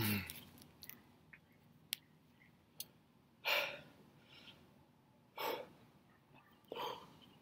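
A man breathing out hard through the mouth: three short, heavy breaths in the second half, a second or two apart.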